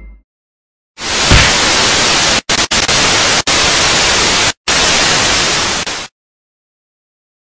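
Loud, even TV-static hiss used as a sound effect, starting about a second in, cut by several brief dropouts, and stopping abruptly about six seconds in.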